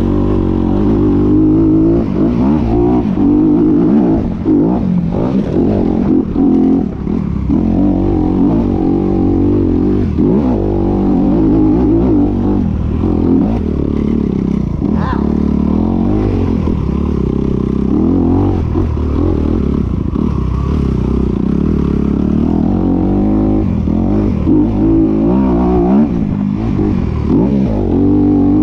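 Dirt bike engine running under riding load, its pitch rising and falling again and again as the throttle is opened and closed.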